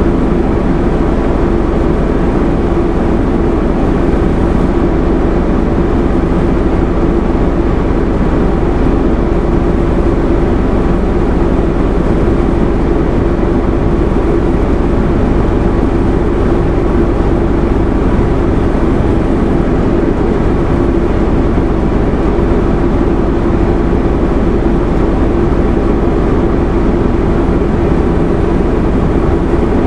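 Detroit Diesel Series 50 engine of a 2001 Nova Bus RTS transit bus heard from inside the bus, running at a steady drone with one strong held tone and no change in pitch or level.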